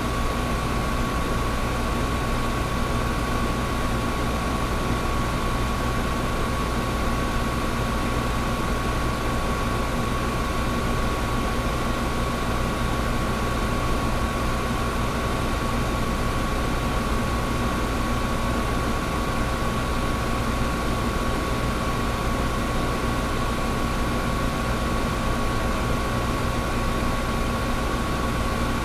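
Old window air conditioner running steadily: fan airflow rush over a low compressor hum, with a thin steady whine on top.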